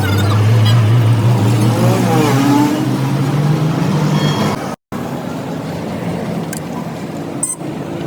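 An engine running steadily with a strong low hum. About two-thirds through it breaks off for an instant and resumes as a rougher, less tonal engine noise.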